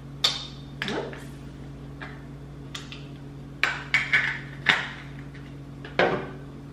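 Pillar candles and packaging handled on a kitchen countertop: several sharp knocks and light clatters as the candles are picked up and set down, over a steady low hum.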